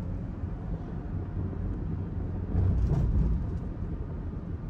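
Car driving in traffic, heard from inside the cabin: a steady low rumble of engine and road noise, swelling louder for about a second midway through.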